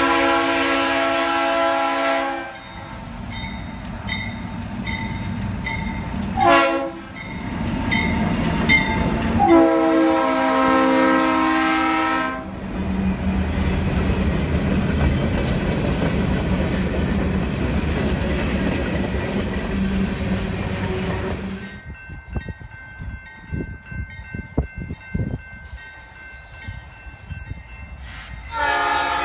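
Norfolk Southern diesel locomotive sounding its multi-chime air horn as it approaches: a long blast, a short one and another long one. The locomotives' diesel engines then rumble past close by, followed by freight car wheels clicking over the rail joints. Near the end another train's horn starts up.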